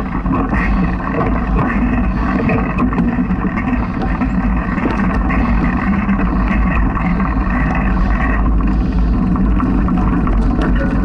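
Ride noise from a mountain bike on a dirt singletrack: steady wind buffeting on the camera microphone with the rumble of tyres rolling over dirt and leaves, and scattered clicks and rattles from bumps.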